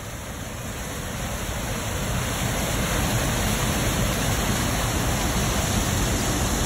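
Mountain stream rushing over boulders in small whitewater cascades: a steady rushing noise that grows louder over the first few seconds, then holds.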